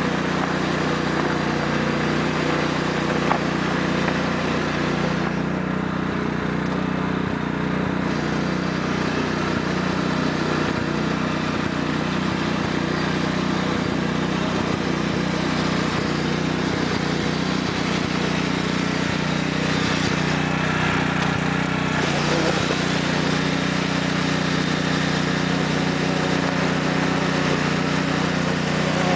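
A 1993 Sears Craftsman lawn tractor's 14 HP Kohler OHV engine running steadily as the tractor is driven over ice and frozen hail.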